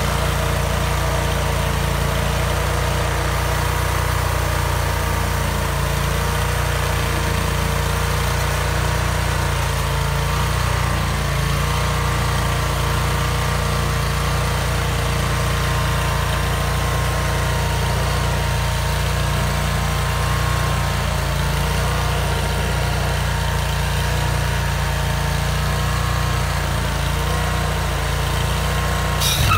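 Vermeer stump grinder's engine running steadily at working speed, its pitch wavering slightly. Right at the end a short, sharper noise comes in and the level rises.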